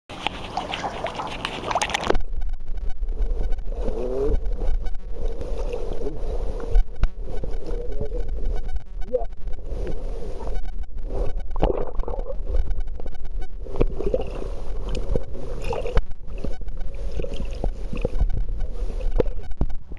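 River water heard through a waterproof camera: about two seconds of brighter splashing near the surface, then a muffled low rush as the camera goes under, with frequent knocks of the camera housing being handled.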